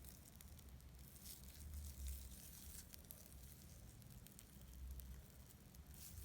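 Faint sticky crackling and squishing of a homemade flour, liquid-soap and shaving-foam slime being stretched and kneaded by hand, in small scattered clicks.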